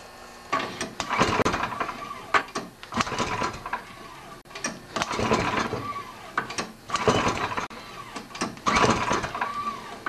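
Recoil starter rope pulled repeatedly, about five pulls, cranking a Tecumseh snowblower engine over for a compression test; each pull is a whirring rush of the rope and the engine turning over without firing.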